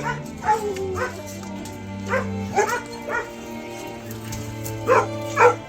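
Several hunting dogs barking and yipping: sharp barks about half a second apart, coming in clusters, over a steady droning tone.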